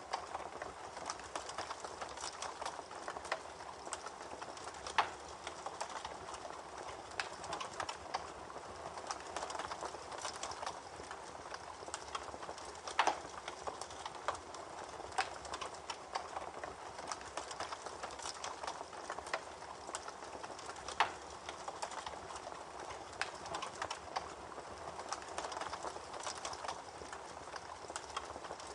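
Wood fire crackling: a steady hiss of burning wood with irregular pops and snaps, a few of them louder than the rest.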